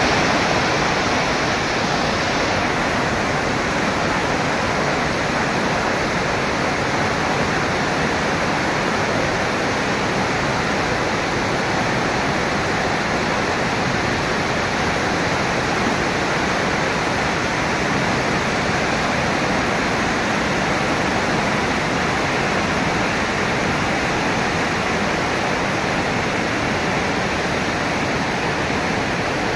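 Flash-flood torrent of muddy water rushing and churning through railings and over the ground, a loud, steady rush that does not let up.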